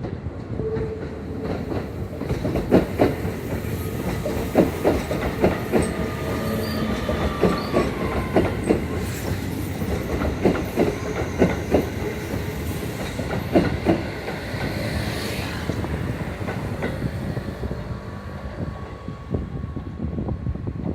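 Keio 5000 series electric train moving slowly through the station. Its wheels clack irregularly over rail joints and points, with a faint motor whine that falls slowly in pitch. The clacking thins out after about fourteen seconds.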